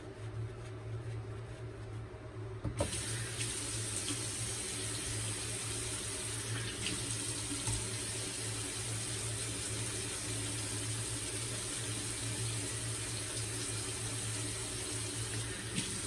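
Sink tap turned on about three seconds in, water running steadily into the basin, over a low steady hum.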